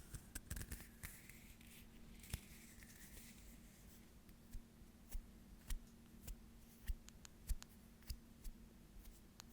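Faint hand sounds: soft rubbing and swishing for the first few seconds, then small sharp clicks and taps of fingers, one every half second or so.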